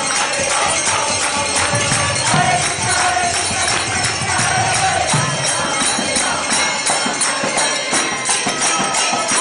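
Kirtan music: a steady fast jingle of hand cymbals over mridanga drum strokes, with a group chanting and clapping along.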